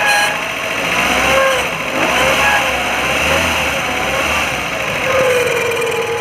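Maruti Gypsy's four-cylinder petrol engine running, with a whine that rises and falls in pitch and the engine swelling briefly as if revved. The noise comes from a bad bearing, which the owner ties to a damaged water pump.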